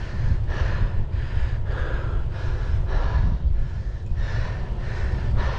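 A cyclist breathing hard while pedalling, with quick, even breaths about two a second, over a steady rumble of wind on the microphone.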